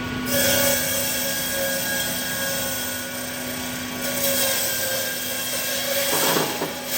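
Twelve-blade electric ice-block cutting machine running steadily: a constant motor hum under an even high hiss, with a brief change in the sound about six seconds in.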